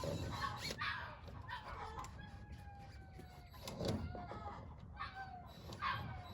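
A flock of chickens clucking and squawking, with a rooster crowing: one long call that falls in pitch near the middle. The birds are noisier than usual, stirred up.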